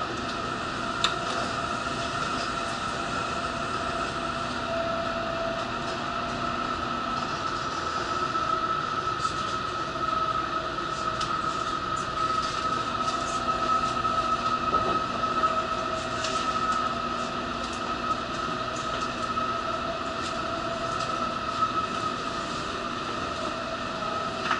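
Running noise inside an N700-series Shinkansen car while the train moves: a steady rumble and hiss with a high whine held over it, and a few faint clicks.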